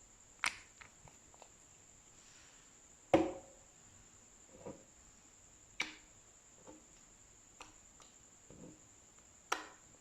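Slime being worked by hand, giving short, sharp pops and clicks: four louder ones spaced a few seconds apart, the loudest about three seconds in, with fainter clicks between.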